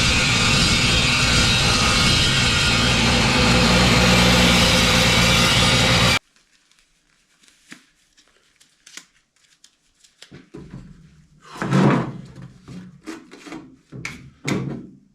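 A loud power tool motor running steadily, which cuts off abruptly about six seconds in. After that come scattered knocks and clatter of workpieces being handled, the loudest about twelve seconds in.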